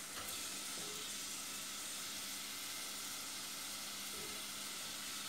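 Diced onions sizzling steadily in olive oil as they are sautéed in a pot, a low even sizzle.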